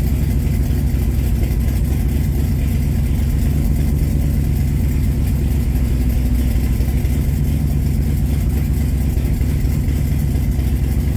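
The Holley Sniper EFI–injected engine of a Factory Five Cobra roadster idling steadily and warming up, a deep, even running sound with no change in revs.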